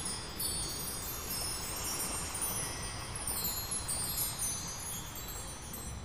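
Shimmering, wind-chime-like tones of an ambient soundtrack, many high ringing notes overlapping and fading over a soft steady wash.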